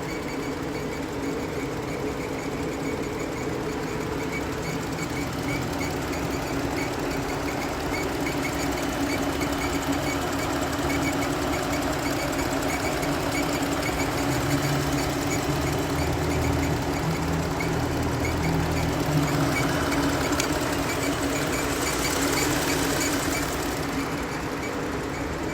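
Jeep Grand Cherokee engine running with a steady hum and a fast, even ticking over it. This is the unusual noise that persists after the drive belt and pulley were replaced under warranty, and its cause is still undiagnosed.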